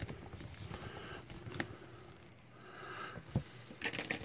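Hands handling a plastic Marvel Legends Titus action figure: faint rubbing and a few small clicks. About three and a half seconds in, a light knock as the figure is set down standing on the table.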